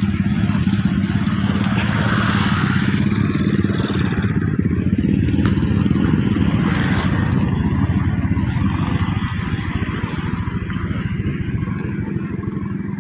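A motorcycle engine running steadily at an even speed, with a constant low hum.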